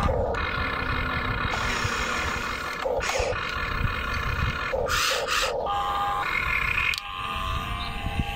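Electric motors and gearboxes of a toy RC excavator whining as the arm swings, lifts and dumps its bucket. The whine changes pitch in steps as each movement starts and stops, over a low rumble.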